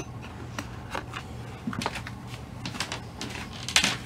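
Irregular light clicks, taps and rustles of small objects being handled, with a sharp click at the start and a louder rustle near the end, over a steady low room hum.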